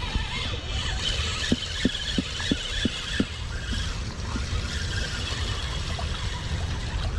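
Spinning reel being cranked to bring in line with a small fish on, whirring, with a run of about seven short knocks, roughly three a second, starting about a second and a half in. A steady low rumble runs underneath.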